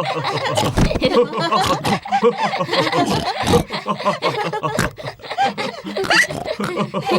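Cartoon pig characters laughing together, chuckles and giggles overlapping the whole time, broken by a few sharp snorts.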